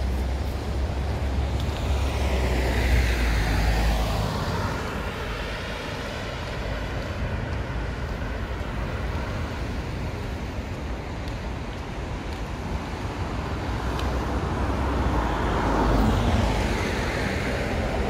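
Cars passing by on a road, one about three seconds in and another near the end, each swelling and fading, over a steady low background rumble.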